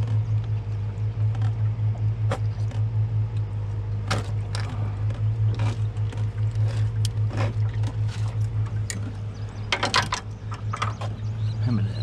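Outboard motor running steadily at low speed, a low hum with a fast even pulse. Over it come sharp clicks and knocks as a catfish is handled in a landing net on the boat deck and unhooked.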